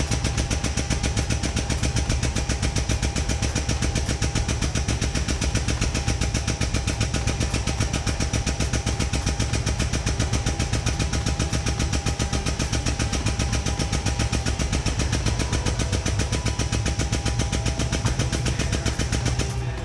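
Air-over-hydraulic pump of a tube bender's ram conversion running, with a fast, steady, chattering pulse as it drives the ram. It stops suddenly near the end.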